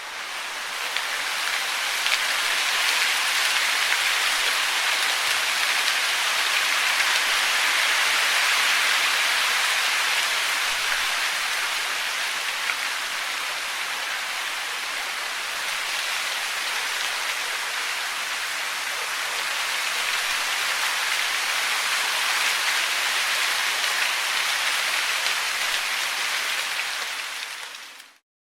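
Steady rushing-water noise, a dense even hiss without separate splashes. It fades in over the first second or two and cuts off suddenly near the end.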